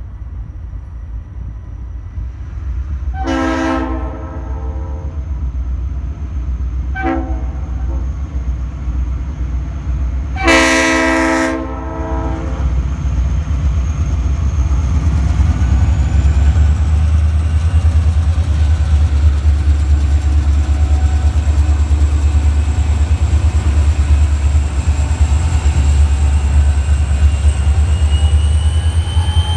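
A diesel train approaching and passing, its locomotive sounding a multi-tone horn: a long blast, a short one, then a louder long blast. The locomotive's engines then rumble loudly as the train goes by, with a thin high whine above them that rises about halfway through.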